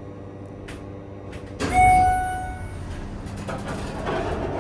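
1998 Schindler MT 300A hydraulic elevator arriving at a floor: a steady hum, then about two seconds in the car's arrival chime sounds once, a single loud ding that rings and fades over about a second, followed by rougher noise as the doors begin to open.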